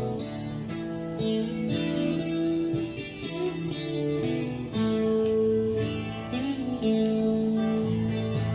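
Acoustic guitar music played from a vinyl record on a turntable, with plucked chords and single-note melody lines and no singing.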